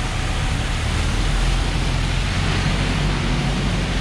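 Traffic on a wet city street: a nearby vehicle's engine running with a steady low rumble, under an even hiss of tyres and light rain.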